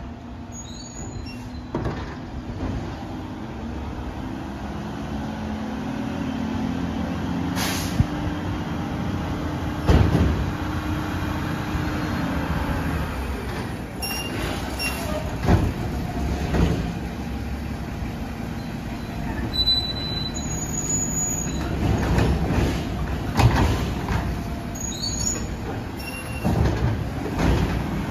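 Mack LR garbage truck with a Labrie Automizer body running as it drives slowly up and pulls in, its engine a low steady drone that rises for a few seconds part way through. Several sudden hisses and clanks sound out over it.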